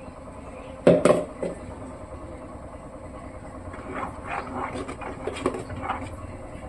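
A steel mixer jar knocked against the rim of an aluminium cooking pot, two sharp knocks about a second in and a lighter one just after, as the last of the paste is shaken out. Later a steel ladle clinks and scrapes against the pot while stirring the thick porridge.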